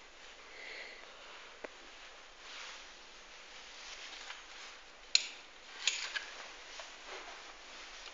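Handling noise from a phone carried while filming: faint rustling over room hiss, with a few sharp clicks, the loudest about five seconds in and two more just after.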